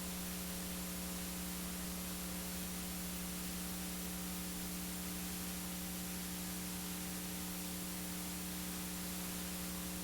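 Steady electrical mains hum with a constant hiss: a few fixed tones, the lowest the strongest, unchanging throughout.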